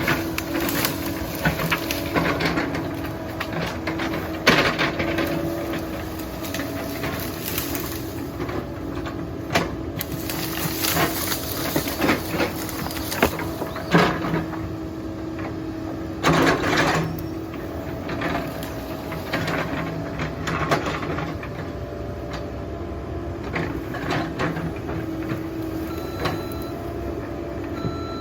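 A Caterpillar 308 excavator's diesel engine running with a steady drone under working load, over irregular knocks and cracks. Near the end its reversing alarm starts beeping.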